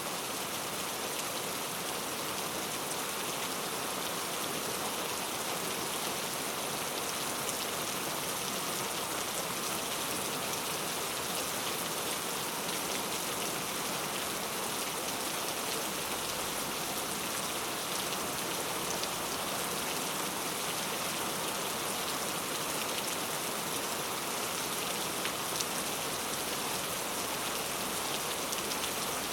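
Heavy rain falling steadily, a dense, even hiss of drops with fine pattering.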